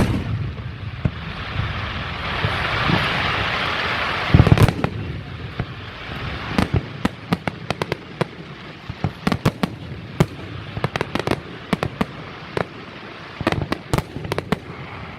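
Aerial fireworks display: a deep boom at the start, a few seconds of dense hiss, another loud boom about four and a half seconds in, then a long run of sharp, scattered pops and crackles from bursting shells.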